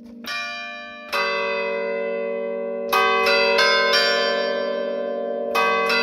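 Church bells played as a festive tune from a bell keyboard, their clappers pulled by chains, each note ringing on and overlapping the next. Single strikes come near the start and about a second in, then a quick run of notes about three seconds in and another near the end.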